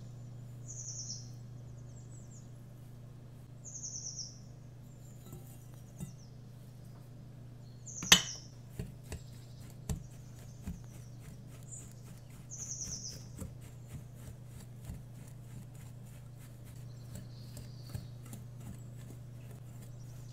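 Recorded winter birdsong: a short high bird call repeated every few seconds over a steady low hum. A sharp click about eight seconds in, the loudest sound, is followed by a run of faint ticks.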